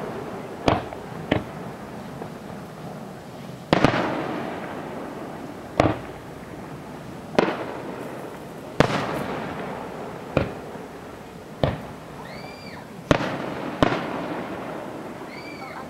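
Aerial fireworks shells bursting, about ten sharp booms spaced one to two seconds apart, each trailing off in a long echo.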